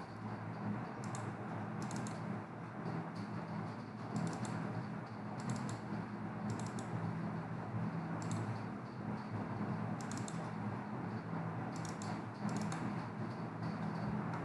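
Computer keyboard keystrokes and mouse clicks, scattered singly and in pairs a second or two apart, over a steady low hum.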